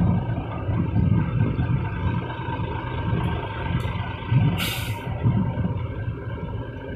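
Heavy truck's diesel engine running, a steady low rumble, with a short burst of air hiss about four and a half seconds in.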